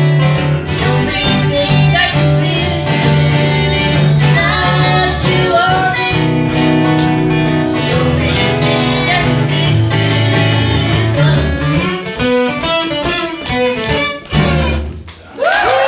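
Live acoustic string band playing fiddle, acoustic guitars and upright double bass, with voices singing and a strong bass line. The song stops suddenly about a second before the end, and audience cheering and whoops break out.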